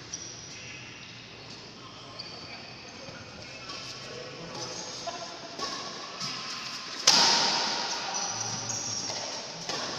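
Badminton rally on an indoor court: shoes squeaking on the court floor in short high chirps, with light hits of the shuttlecock. About seven seconds in comes a sudden loud burst that rings out through the hall.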